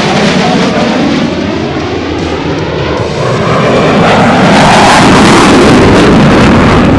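Jet noise from a CF-18 Hornet's twin General Electric F404 turbofans as the fighter maneuvers past. It swells to its loudest in the second half.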